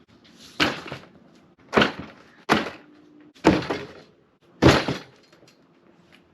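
Five sharp bangs or knocks, irregularly spaced about a second apart, each dying away quickly.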